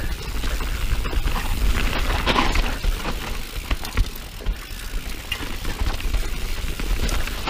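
Mountain bike descending rough dirt singletrack: a steady run of irregular clicks and rattles from the bike's parts over a low rumble of tyres on the trail.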